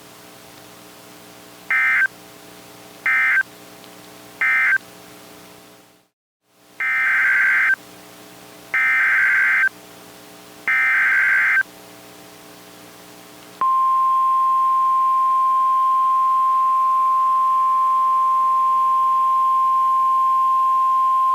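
Emergency Alert System SAME digital data bursts: three short bursts of warbling tones (the end-of-message code), a moment's dropout, then three longer bursts (the header of the next alert). About thirteen seconds in, the steady 1050 Hz NOAA Weather Radio alert tone begins. A faint steady hum lies underneath.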